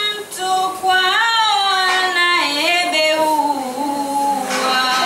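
A woman's solo voice chanting lines of a Swahili poem (shairi) without accompaniment, in long held notes that slide up and down in pitch, with a brief pause for breath near the start.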